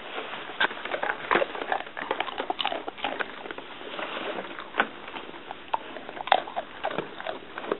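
A dog in a hard plastic cone sniffing along the carpet, with irregular light knocks and scrapes as the cone and plastic eggs bump against the floor.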